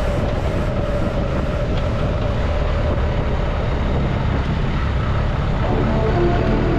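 A vehicle running on the road, heard on board: a steady low engine and road rumble with wind noise, with a clearer engine note coming through near the end.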